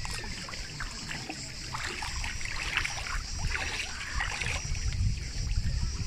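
Shallow seawater splashing and sloshing around feet wading over rocks, with clusters of splashes in the middle seconds.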